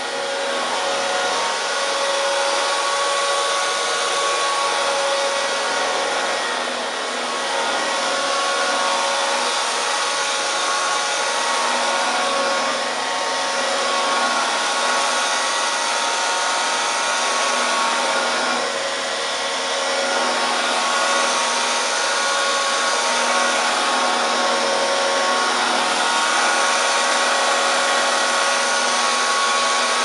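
1935 Hoover Junior 375 upright vacuum cleaner running on carpet as it is pushed about: a steady motor whine over a rushing of air. The level dips slightly a few times.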